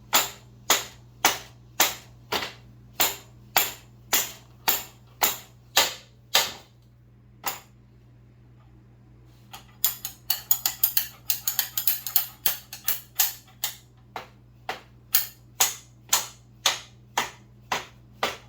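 Hammer striking metal in steady blows, about two a second, pausing for a few seconds midway and then coming in a quick flurry of lighter taps before the steady blows resume: driving a drift through a motorcycle swingarm pivot.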